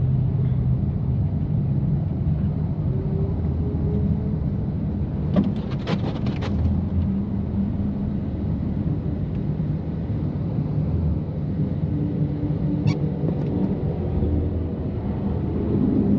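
2018 BMW F80 M3 Competition's twin-turbo inline-six running steadily at low revs through catless downpipes and an open valved exhaust, with a deep steady drone. A short cluster of sharp clicks comes about five to six seconds in, and a single click near the end.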